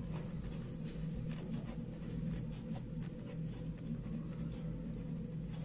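Ballpoint pen writing on sheets of paper, a run of faint, short scratching strokes over a steady low hum.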